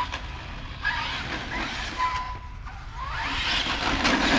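Arrma Felony 6S electric RC car driving on pavement: brushless motor whine and tyre noise, rising as it speeds up about three seconds in.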